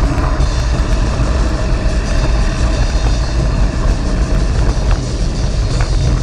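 Wind buffeting a helmet-mounted action camera's microphone over the rumble of a mountain bike's tyres rolling on a gravel trail. A few sharp rattles from the bike come near the end.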